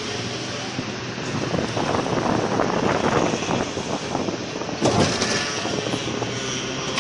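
Mini tourist train running along a street, heard from on board: a steady engine hum with road and street noise, and a brief louder clatter about five seconds in.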